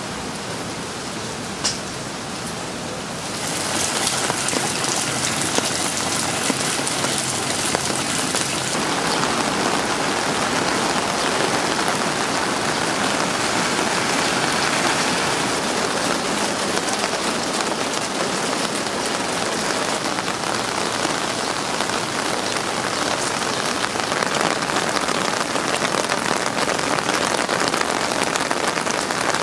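Heavy monsoon rain falling steadily on pavement and other surfaces, a dense even hiss that gets louder about three and a half seconds in. One sharp tap stands out about two seconds in.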